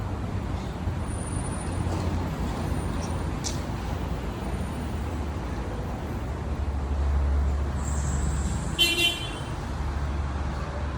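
Steady low rumble of motor vehicles, with a short vehicle horn toot about nine seconds in.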